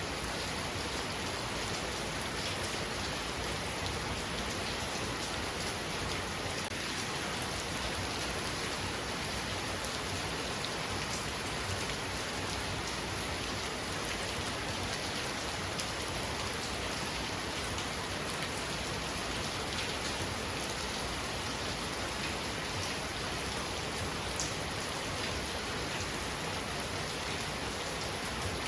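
Heavy rain falling steadily, an even hiss with a few sharper drop ticks here and there.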